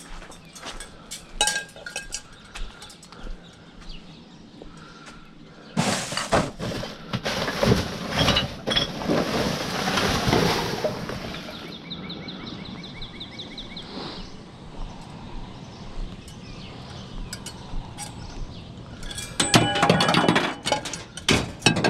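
Clinks, knocks and clatter of scrap items being handled and shifted, with a louder, busier stretch of rattling in the middle.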